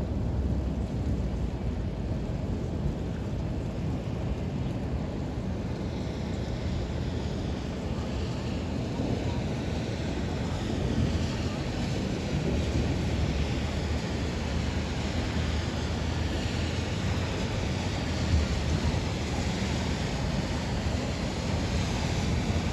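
Strong thunderstorm wind gusting and buffeting the microphone as a steady low rumble. A higher hiss builds from about six seconds in.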